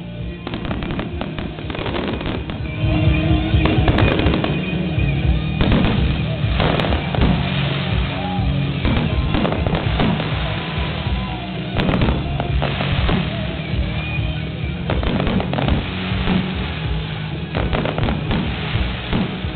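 Aerial firework shells bursting in quick succession, with sharp bangs and crackling that thicken about three seconds in and keep going. Music plays underneath.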